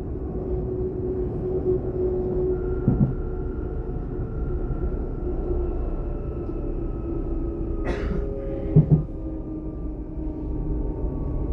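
Class 422 electric multiple unit heard from inside the carriage while running: a steady low rumble with a faint motor whine whose pitch slowly sinks. A short knock comes about 3 s in and two sharp knocks come about 8 and 9 seconds in.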